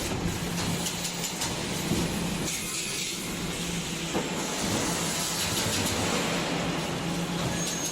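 Industrial machinery of a 3D wire-mesh EPS panel production line running: a steady hum under a noisy mechanical bed, with a few faint ticks.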